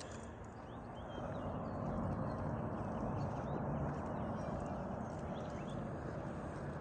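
Footsteps and rustling of a walk with a leashed dog, moving from a paved path onto grass, louder through the middle.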